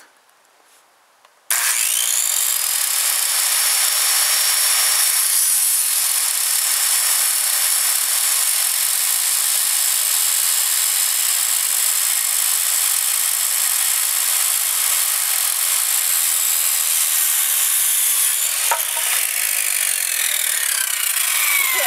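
Handheld circular saw starting suddenly about a second and a half in and cutting through a wooden board with a steady high whine. Near the end the blade's pitch falls as it slows down.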